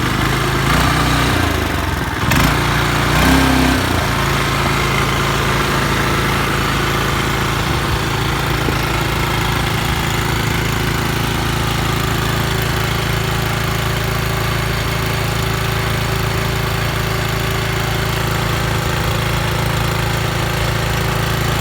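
Small tiller engine running, its speed shifting up and down over the first few seconds, then settling to a steady idle.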